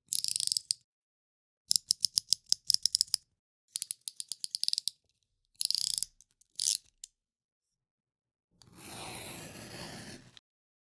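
Utility knife's ratcheting blade slider clicking notch by notch in several quick runs, about ten clicks in one run. Then comes one longer, steady scrape of the blade drawing a cut.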